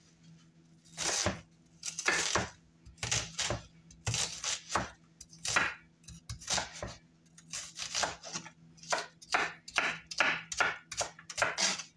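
Chef's knife dicing an onion on a bamboo cutting board: a run of uneven chopping knocks, about two a second, starting about a second in.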